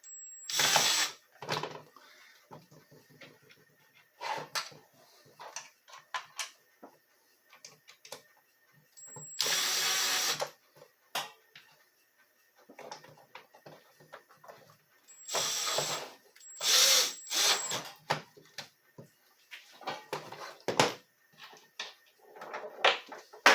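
Cordless power screwdriver driving screws into a plastic tool housing in several short runs of a second or so, with small clicks and knocks of plastic parts being handled between them.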